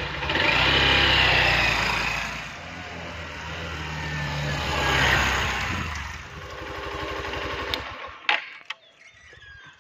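Hero Xtreme 160R motorcycle's single-cylinder engine running and being revved, swelling about a second in and again around five seconds, then dropping to a lower steady note that fades out near the end.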